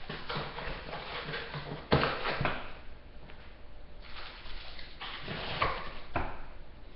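Packaged frozen food being shuffled about in a freezer: rustling packaging and clattering, with a sharp knock about two seconds in.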